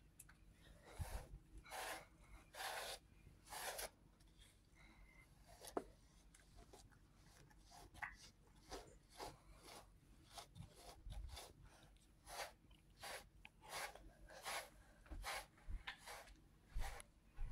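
Slicker brush raking through a cat's fur: a run of short scratchy brush strokes at an uneven pace, sparse from about four to eight seconds in and coming quicker after that.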